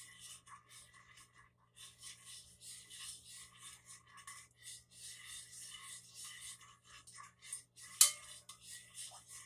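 Spoon stirring marinade in a pot, scraping against the sides in quick repeated strokes, with one sharper clink about eight seconds in.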